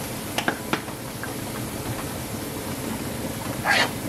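Onion, pepper and potato sauce sizzling steadily in a wok. A metal spatula clicks twice lightly about half a second in, then scrapes across the wok as stirring starts near the end.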